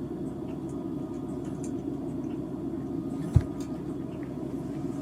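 Steady low background rumble, with one dull, low thump a little past three seconds in.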